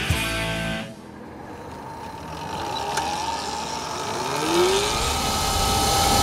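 The tail of a music cue stops under a second in. Then a Brammo Enertia electric motorcycle rides past: no engine note, just a thin steady whine from its electric drive, a brief rising whine as it speeds up, and tyre and wind hiss that grows louder as it approaches.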